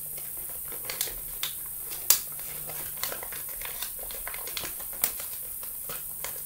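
A sheet of origami paper being folded by hand along its creases: scattered crisp crackles and ticks as the paper bends and creases, the loudest about two seconds in.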